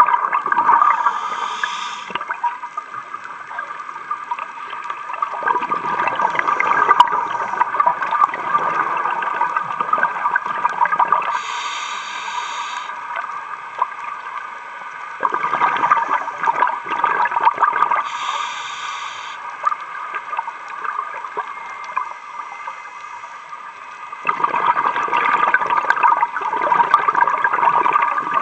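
Scuba diver breathing through a regulator underwater: each breath is a short high hiss of inhalation followed by a few seconds of bubbling from the exhaled air, three to four breaths in all, over a steady hum.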